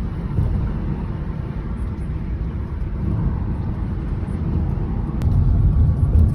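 Road noise from inside a moving car: a steady low rumble that grows louder over the last second or so.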